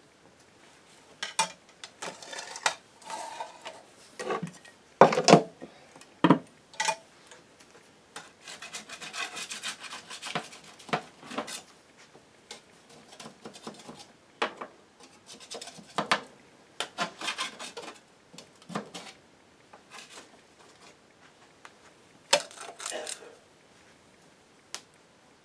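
Metal spatula scraping and knocking against a metal sheet pan while cutting and lifting out pieces of baked omelet. Scattered clinks and scrapes, with the loudest knocks about five to six seconds in.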